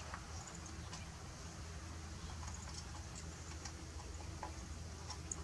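Faint, scattered small clicks and taps of metal mounting hardware being handled as a light-bar bracket is fitted onto its bolt, over a steady low background hum.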